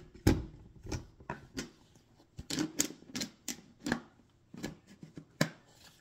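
Hard plastic parts of a vacuum's filter assembly being handled, giving an irregular run of about fifteen sharp clicks and knocks, the loudest just after the start.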